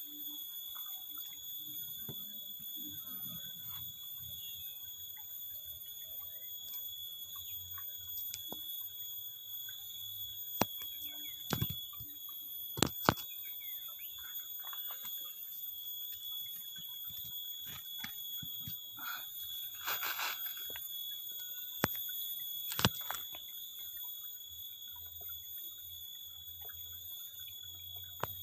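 A steady high-pitched whine with a few sharp clicks, a cluster about eleven to thirteen seconds in and another around twenty-two seconds.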